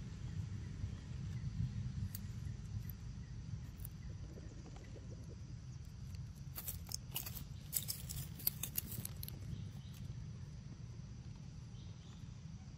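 Dry leaves crackling under a young macaque's steps as it crosses the leaf litter. The sharp crackles come in a cluster lasting about three seconds in the middle, over a steady low rumble.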